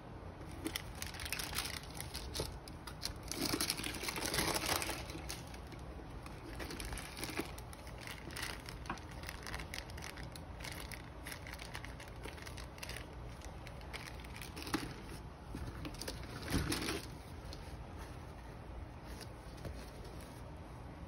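Wrapping paper and a plastic zip bag crinkling and rustling as gloved hands handle them, with small handling taps throughout; the crinkling is loudest in a long stretch a few seconds in and again in a shorter burst later on.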